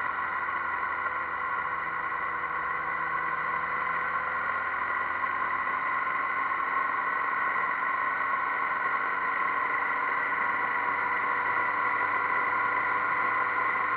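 Motorcycle riding along at a steady cruising speed: its engine running evenly under a constant rush of wind and road noise, with no gear change or marked rev change.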